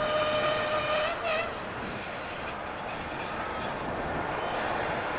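ChME3 diesel-electric locomotive sounding its horn: one blast of about a second, then a short second blast. The train runs on steadily and grows gradually louder as it approaches.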